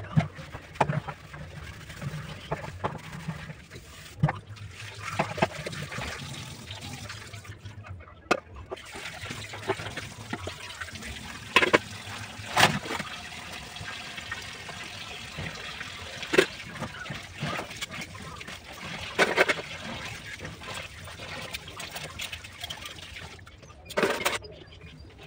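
Dishes being washed by hand in a kitchen sink: water trickling and splashing, with metal cooking pots and a metal bowl clattering against the sink every few seconds.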